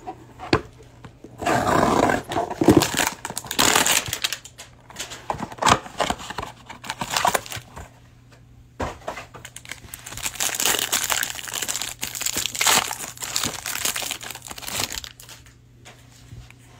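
A cardboard trading-card hanger box being torn open by hand and the cards' plastic wrap crinkled and pulled off, with sharp clicks and rustles. The handling comes in two long stretches, about a second in and again from about nine seconds in, with a short quiet gap between.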